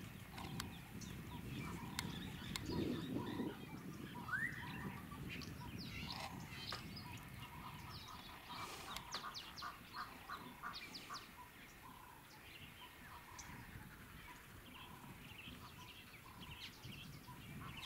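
Egyptian geese calling: repeated short honks coming on and off, in quick runs near the end.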